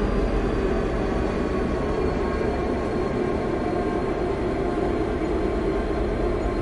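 Diesel locomotive engine running steadily with a deep, even drone and a faint high whine that slowly drops in pitch.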